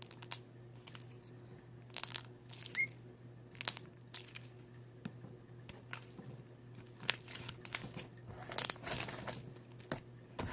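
Slime being worked by hand, giving irregular sticky crackles and squishes over a steady low hum.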